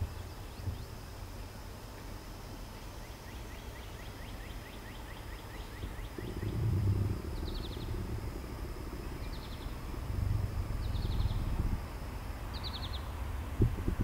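Summer outdoor ambience at a quiet rail crossing: a steady high-pitched insect buzz, a bird's short chirps repeating about every second and a half from midway, and a low rumble that grows louder through the second half.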